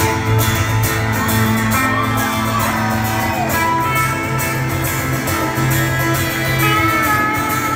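Live band playing, with electric and acoustic guitars and a violin over sustained low notes; several held notes glide in pitch.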